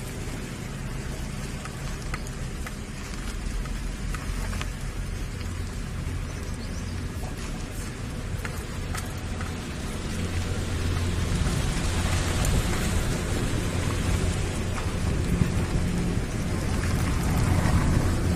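Wind noise on the microphone of a moving vehicle, over a low steady engine hum, growing louder in the second half.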